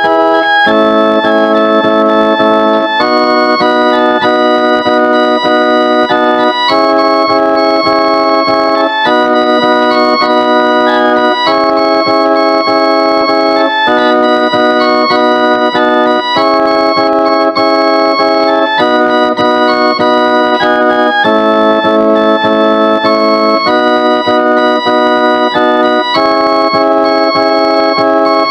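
Instrumental karaoke backing track of a hymn, played on an organ-like keyboard: sustained chords that change about every two and a half seconds, with no singing voice.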